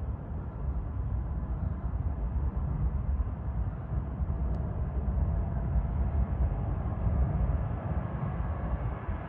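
Jet airliner's engines at take-off thrust: a steady low rumble with faint steady whining tones above it.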